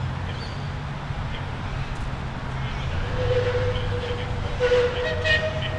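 Distant Puffing Billy locomotives 7A and DH5 working, heard as a steady low rumble, with faint higher tones coming in over the last few seconds.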